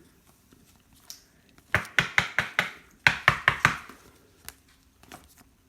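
Two quick runs of sharp knocks on a hard surface, about six or seven each, the second starting right after the first ends.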